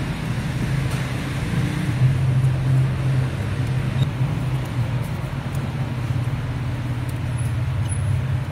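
A vehicle engine running steadily at idle, a low even drone.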